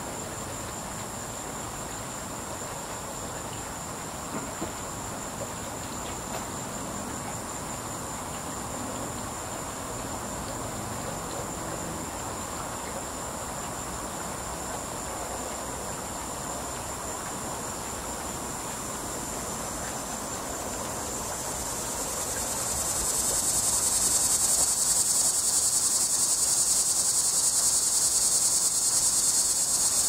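A steady high-pitched insect trill runs in the background. About three-quarters of the way through, a cicada starts its loud buzzing call, which swells over a second or two and then holds loud.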